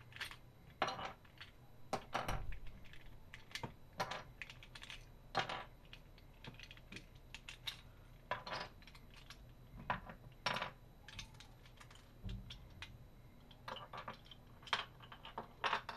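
Plastic Rubik's Cube pieces clicking and clattering as the cube is twisted and pulled apart by hand, with loose cubies knocking onto a wooden table. The clicks come irregularly, one or two at a time.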